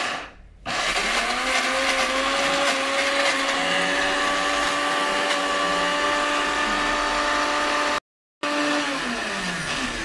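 Electric countertop blender running under load as it grinds soaked beans and chopped onion into a thick batter. It stops for a moment just after the start, restarts and runs steadily, cuts out briefly about eight seconds in, then winds down with a falling pitch near the end.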